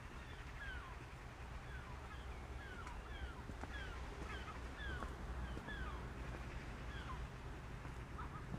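A bird chick calling: short, high, falling cheeps repeated about twice a second.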